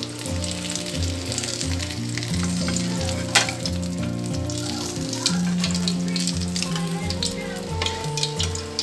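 Chicharon bulaklak (pork mesentery) deep-frying in hot oil in a wok: steady sizzling with scattered crackles and a sharp pop a few seconds in, as a slotted spoon stirs through the oil and lifts pieces out.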